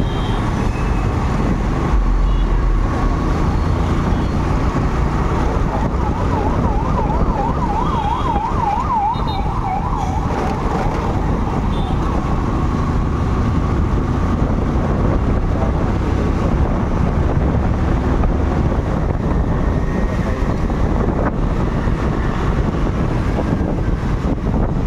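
Steady wind and road noise of a ride through traffic, with an electronic siren warbling quickly up and down for about four seconds, starting about five seconds in.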